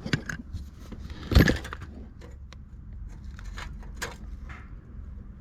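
Small metal tools and parts clinking and knocking as they are handled, with one louder knock about one and a half seconds in.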